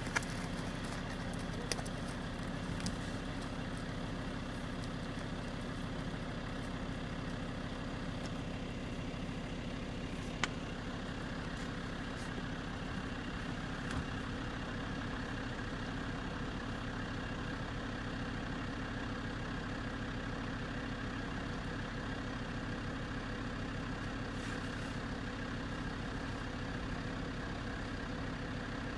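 A steady, even mechanical drone, with a few faint clicks in the first few seconds and one about ten seconds in.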